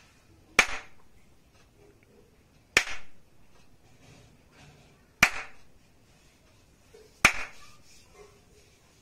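Four sharp hand claps, about two seconds apart, each one the trigger that toggles a clap switch's LED on or off.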